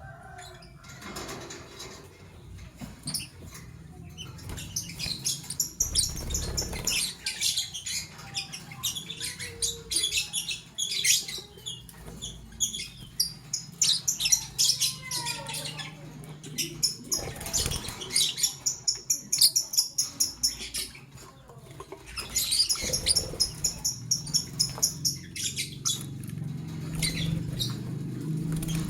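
Lovebirds chattering: fast runs of high-pitched chirps and squeaks with a few short pauses.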